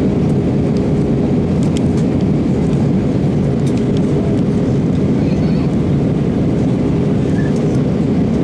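Steady cabin noise of an Airbus A320 in flight on approach: the deep, even rush of engines and airflow heard from a window seat by the wing, with a faint steady hum running under it.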